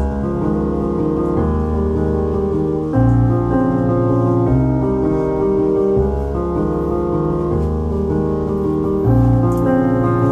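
Background music: piano chords changing about every one to one and a half seconds.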